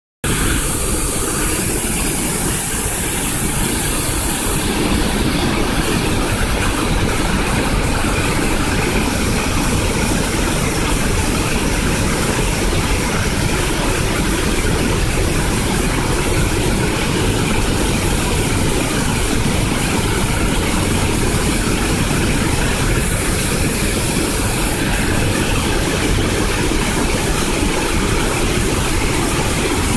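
Sakura no Taki waterfall pouring steadily: a loud, even rush of falling water with a deep rumble underneath.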